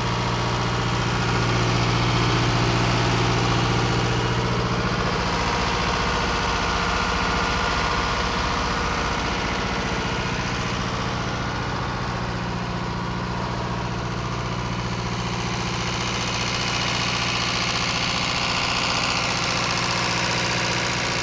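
Oliver 1900 tractor's four-cylinder turbocharged GM Detroit Diesel two-stroke engine idling steadily.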